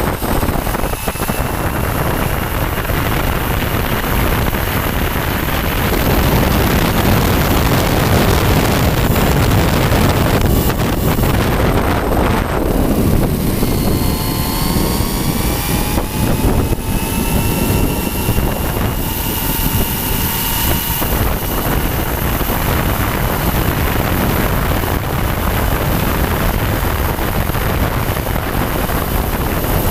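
Electric RC truck at speed, heard from a camera riding on it: a steady, loud rush of tyre and drivetrain noise with wind on the microphone. A motor and gear whine rises and falls in pitch as the truck speeds up and slows through the corners, plainest about halfway through.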